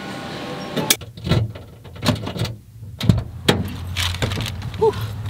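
A sharp click about a second in, then a handful of separate knocks and thumps, with a low steady hum setting in about halfway through.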